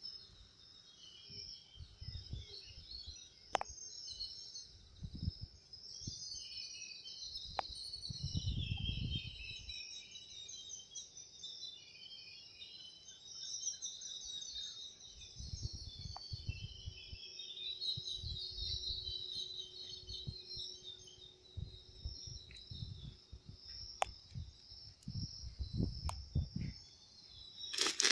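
High, continuous chirping of birds in the background, with irregular low rumbling noise that comes and goes, loudest about eight to nine seconds in.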